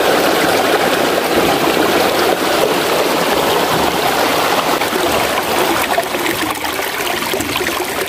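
Steady rush of flowing water from the stream at a dam, easing a little in the second half.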